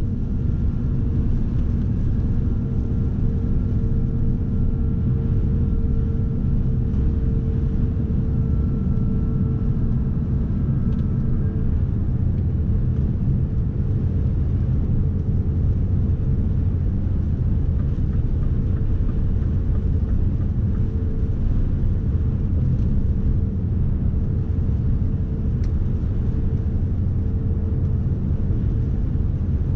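Scania S520 truck's V8 diesel engine running steadily under way with road rumble, the truck loaded to 38 tonnes gross. A steady hum runs through, with a faint higher whine over the first ten seconds or so.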